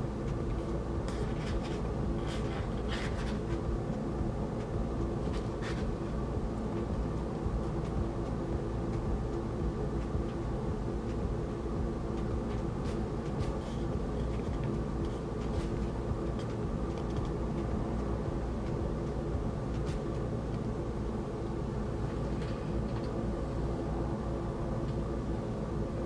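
A steady background hum with a few constant pitched tones in it, and now and then faint paper rustles and clicks as a large vinyl-album booklet is held and its pages turned.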